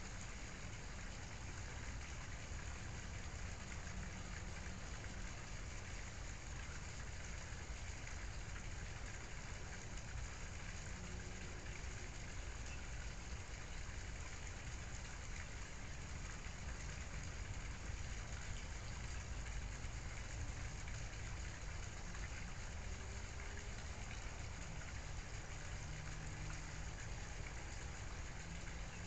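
Steady, even background noise with a low rumble, unchanging throughout, with no distinct events.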